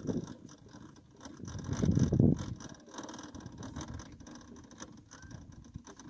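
Scale model Boeing Vertol 234 tandem-rotor helicopter winding down after landing: the slowing rotors and drive make a light clicking, rattling sound. There is a brief, louder low rumble about two seconds in.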